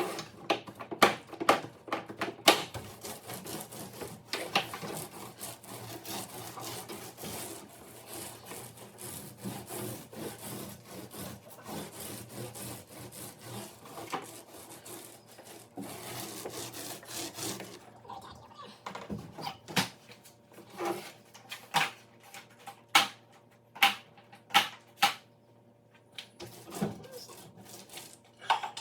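Scraping and rubbing with scattered sharp taps and knocks: hand work laying glued-down vinyl flooring on a boat deck. The knocks come in clusters at the start and again in the last third.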